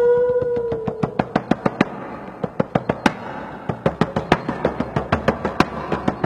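A held hummed tone fading out about a second in, then a run of sharp mouth clicks, several a second at an uneven pace.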